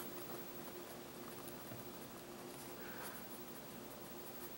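Faint scratching of a pen writing on paper, with a faint steady hum underneath.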